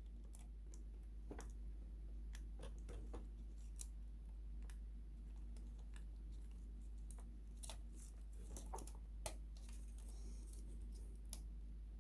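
Faint, scattered clicks and light taps of small parts and cable connectors being handled, over a steady low hum.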